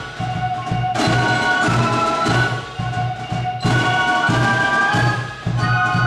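German fife and drum corps playing: many transverse flutes carry the melody together in high held notes over a regular drum beat.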